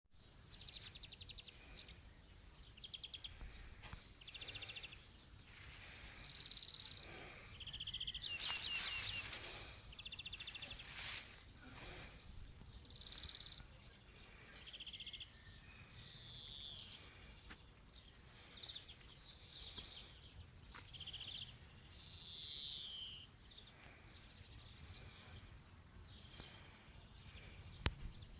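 Faint songbirds singing: short high chirps and rapid trills repeating every second or so, with a few falling phrases. A few bursts of rustling, like grass brushing the microphone, come around the middle, and a sharp click near the end.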